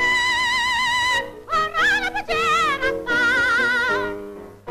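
Operatic soprano singing with wide vibrato over instrumental accompaniment: a long held high note, a quick run of moving notes, then another held note that fades away near the end.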